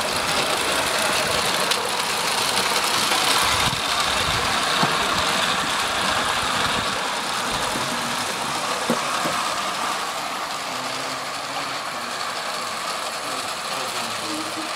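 Live-steam 16mm-scale Kerr Stuart 'Skylark' model locomotive running, with a steady hiss of steam and exhaust. It grows fainter in the second half as the engine draws away.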